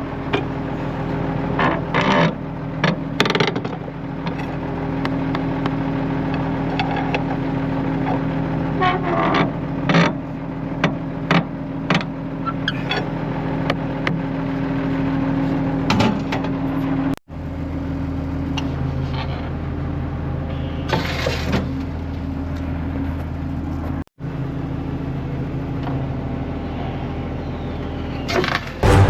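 Engine running steadily, with scattered clunks and knocks over it and two abrupt breaks where the sound cuts out for a moment.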